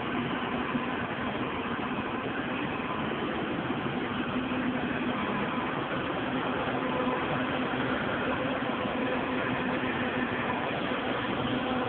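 John Deere W540 combine harvester running steadily while harvesting rapeseed: a constant engine and machinery drone with a steady hum.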